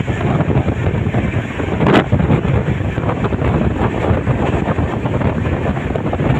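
Wind buffeting the microphone out of a passenger train's window at full speed, over the steady rumble of the coach's wheels on the track. A single sharp knock about two seconds in.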